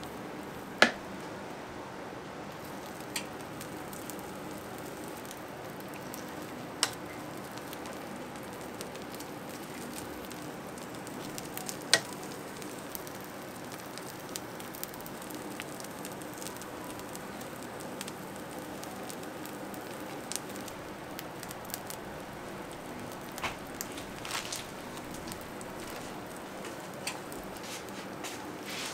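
Batter and filling sizzling steadily in hot bungeoppang (fish-shaped pastry) molds, with a few sharp metal clicks and knocks scattered through.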